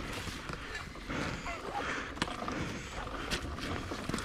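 Irregular footsteps, scuffs and crunches on a dirt trail as an electric dirt bike is pushed backwards by hand. The bike won't power on, so no motor is heard.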